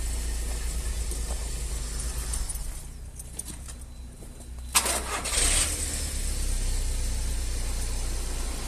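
Car engine running steadily, back on all cylinders after its oil-fouled spark plug was replaced, with a short loud noisy burst about five seconds in.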